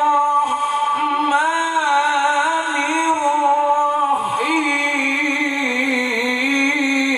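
Male qari reciting the Qur'an in the melodic tilawah style, amplified through a microphone. He holds long notes with ornamented, wavering pitch and takes a short break about four seconds in before starting a new phrase.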